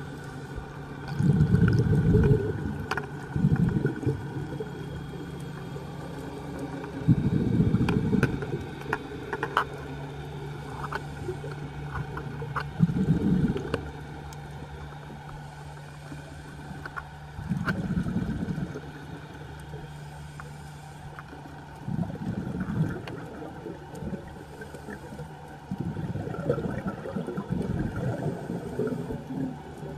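Scuba diver's exhaled bubbles gurgling out of the regulator underwater in bursts every four to six seconds, over a steady low hum and scattered faint clicks.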